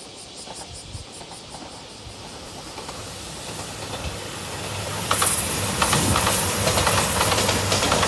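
A JR 2700 series diesel train approaching and passing close by, growing steadily louder, then loud from about five seconds in with wheels clattering over the rail joints and a low engine hum under the rush of noise.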